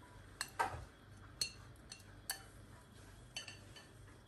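Kitchenware clinking against a nonstick frying pan as spiralized zucchini noodles are tipped in from a bowl: several short sharp clinks and taps, the loudest about half a second in.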